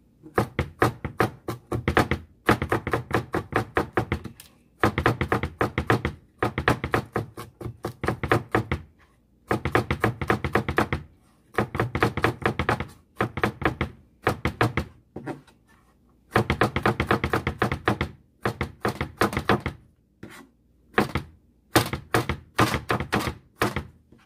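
Chef's knife chopping garlic cloves on a plastic cutting board: quick strokes, several a second, in runs of a second or two with short pauses between.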